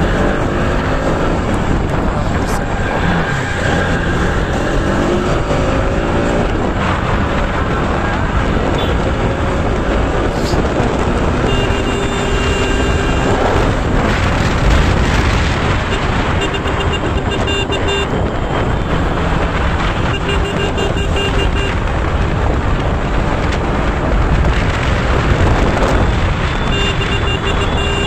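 Bajaj Pulsar RS200 motorcycle riding on the road, its single-cylinder engine running under wind rush over the microphone, with the engine pitch climbing through the first few seconds. A vehicle horn beeps in quick pulses in four short spells in the second half.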